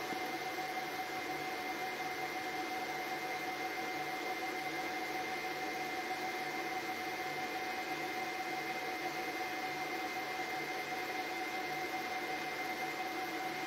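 Steady hiss of a CCTV recording's audio track, with two constant high whining tones and no distinct events.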